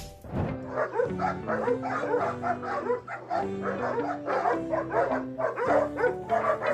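A dog barking rapidly and repeatedly, several barks a second, over background music.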